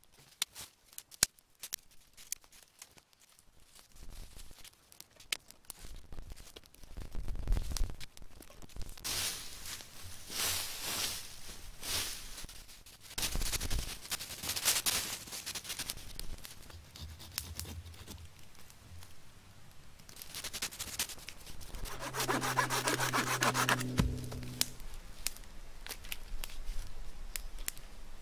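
Sharp snaps from twigs catching in a small campfire, then footsteps and rustling through dry leaf litter. Near the end, a hand saw cuts wood in quick rhythmic strokes for a few seconds.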